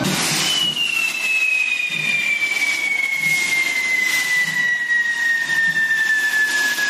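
Hand-held firework fountains spraying sparks with a loud, steady rushing hiss that swells every second or so. From about half a second in, a single high whistling tone slowly falls in pitch.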